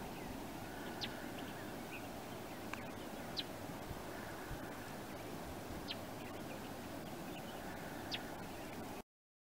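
Steady rushing of a flash-flooding river, with short high bird chirps every two or three seconds; the sound cuts off abruptly near the end.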